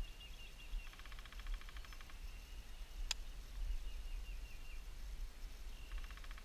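Spincast fishing reel clicking rapidly as its handle is cranked with the anti-reverse engaged, in two runs of about a second each, one near the start and one near the end. A single sharp click falls between them.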